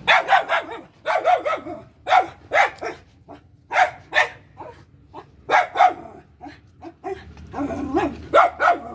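Puppies yapping and barking in short, high-pitched calls, often several in quick succession, with a dense run of yaps near the end.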